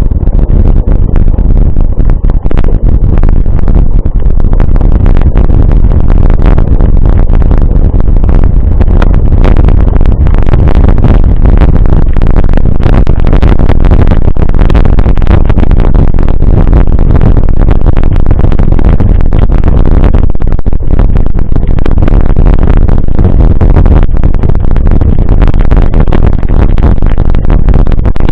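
Loud, dense rushing noise, heaviest in the low end and full of constant rattling knocks: a mountain bike ride picked up by a camera on the bike or rider, with wind on the microphone and jolts over rough trail.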